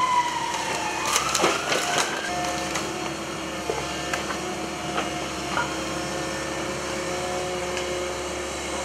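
Komatsu PC138US excavator demolishing a brick and timber wall with its grab. A whine slides down and then rises again, and a burst of cracking and crashing masonry and splintering timber comes between one and two seconds in. Scattered knocks of falling debris follow over the machine's steady running.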